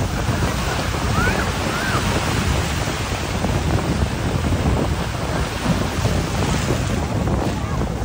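Ocean surf washing on a beach, with wind buffeting the microphone in a steady low rumble. Two short, faint high calls sound between one and two seconds in.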